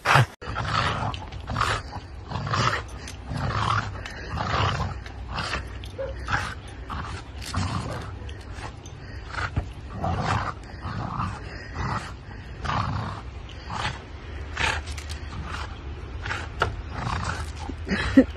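An animal calling over and over in short calls, roughly one a second.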